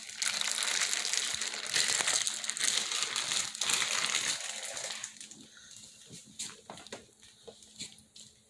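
Plastic wrapping on a raw brisket rustling and crinkling as it is pulled off, a dense rushing noise that drops away about five seconds in to a few light clicks and taps.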